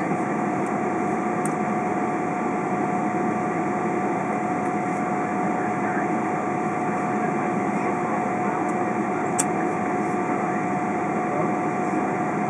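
Cabin noise inside a Boeing 777-200 on the ground, its jet engines at idle: a steady rushing hum with a constant whine over it, and a single sharp click about nine seconds in.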